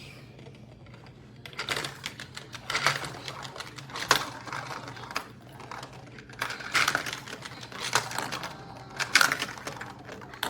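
Marbles clattering and rattling down a plastic magnetic-tile marble run, rapid clicks coming in several bursts from about a second and a half in.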